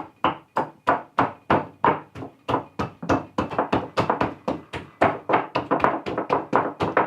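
Hands pounding boiled, peeled potatoes to mash them: a quick, steady run of dull thuds, about three a second.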